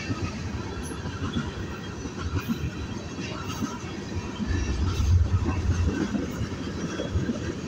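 Freight train tank cars rolling past: a steady rumble of steel wheels on rail with irregular clacks as the wheel trucks pass, growing louder and deeper about halfway through.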